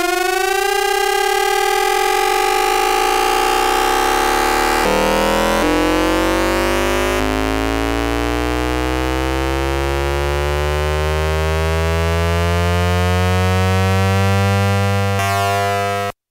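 VVVF inverter noise of a Hanshin 5500 series train's motor car, picked up by a radio receiver rather than a microphone: a cluster of electronic tones rising steadily in pitch as the train accelerates, jumping suddenly several times as the inverter changes pulse mode. A tone at the inverter's output frequency is mixed in, and the sound cuts off sharply near the end.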